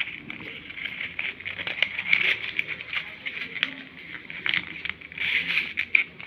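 Sheet of paper rustling and crinkling as it is handled and folded, a dense run of short crackles.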